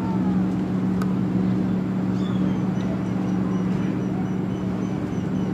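Steady drone of a motorboat engine running at an even pitch.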